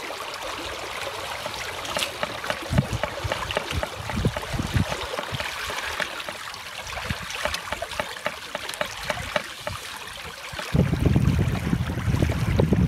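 Water splashing and rushing along the hulls of a Hobie Getaway sailing catamaran under way, a steady wash full of small crackling splashes. Near the end the sound changes to a louder low rumble.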